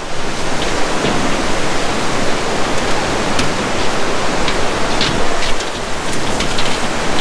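Mandakini River, a fast mountain river, rushing below a bridge: a loud, steady rush of whitewater.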